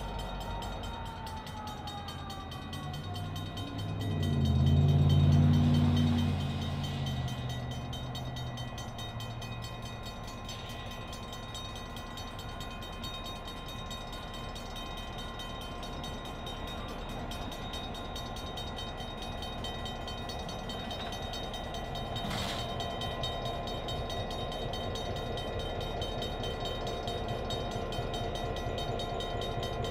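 EMD GP9 diesel-electric locomotive with its two-stroke V16 engine running as it creeps toward the crossing hauling tank cars. A loud low rumble swells and fades about five seconds in, a single sharp clank comes near the end, and the engine grows louder as the locomotive draws closer.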